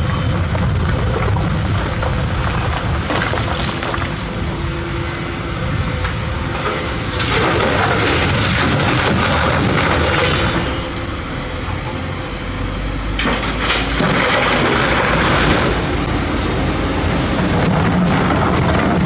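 Excavator's diesel engine running under load while it digs, a steady low rumble that grows louder and harsher twice as the machine works harder.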